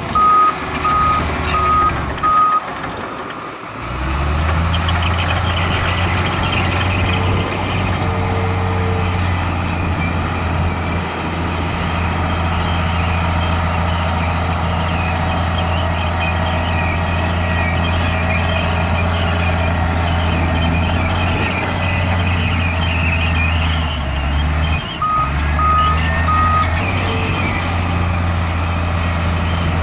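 Heavy diesel earthmoving machinery running steadily under load. A reversing alarm beeps evenly at the start and again briefly near the end, and faint high squeals sound over the engine in the middle.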